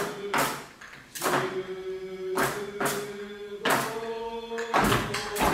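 Accompaniment of a Japanese three-lion shishimai dance: a song sung in long held notes, with irregular sharp drum-like strikes, about one a second.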